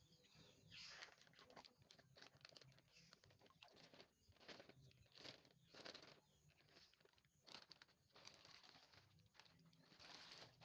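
Plastic bag crinkling and rustling faintly in irregular bursts as it is handled in the water.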